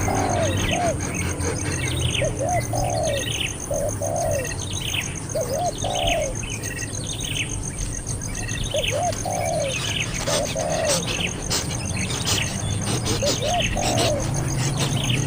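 A baby bird calling over and over: short arched chirps about once a second, some low and some high-pitched, over a steady faint high pulsing tone.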